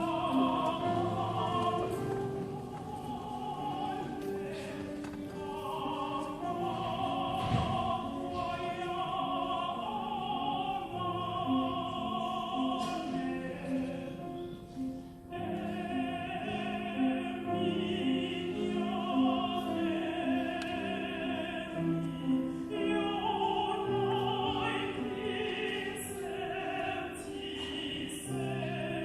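Sung music: long held vocal notes with vibrato over changing lower notes, with a brief drop in loudness about halfway through.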